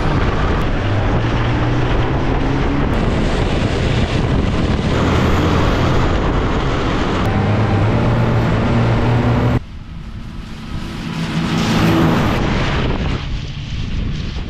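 Ski-Doo Skandic snowmobile engine running steadily under way, heard from on board. About two-thirds of the way through it drops off sharply, then is heard from beside the trail, getting louder and then fading as the snowmobile pulls away towing its sled.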